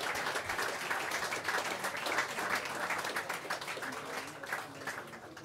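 Audience applauding, many hands clapping at once; the applause fades away near the end.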